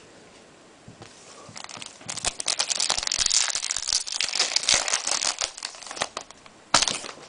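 A trading-card pack wrapper crinkling and tearing open as the next pack of 2014 Upper Deck SP Authentic Golf cards is opened. The dense crackling lasts about four seconds, starting about two seconds in, and a short sharp rustle follows near the end.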